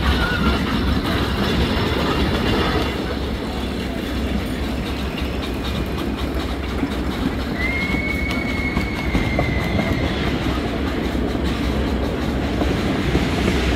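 Miniature train rolling along its track, heard from on board: a steady rumble and clatter of the wheels. About halfway through, a thin high wheel squeal lasts about three seconds as the train rounds a curve.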